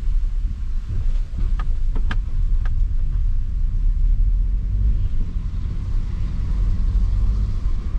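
Steady low rumble of a Suzuki car's engine and tyres heard from inside the cabin while driving, with a few short, sharp clicks between one and three seconds in.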